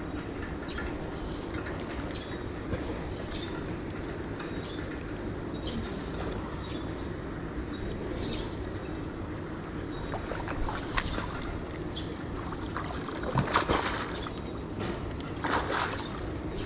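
Steady low rumble with water sloshing, and two short, louder bursts of noise near the end.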